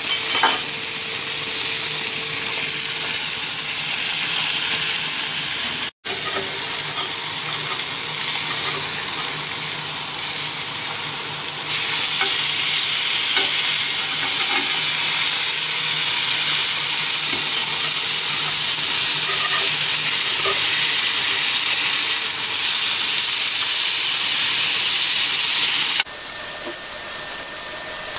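Hake fillets frying on a ridged cast-iron grill pan: a steady sizzling hiss, louder from about twelve seconds in, with light clicks and scrapes of a spatula as the fillets are turned. The sizzle cuts off sharply near the end, leaving a quieter steady hiss.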